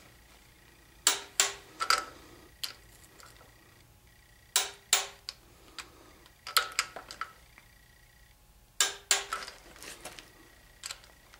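Ratcheting wrench clicking in short bursts of a few sharp clicks, every second or two, as the water pump bolts on a Chevy 350 small-block are run down and torqued to about 30 foot-pounds.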